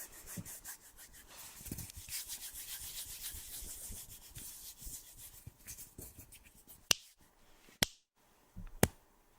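Close-up ASMR trigger sounds on a microphone. Fast, dense rubbing and scratching runs for about six seconds, then gives way to three sharp single clicks or taps about a second apart.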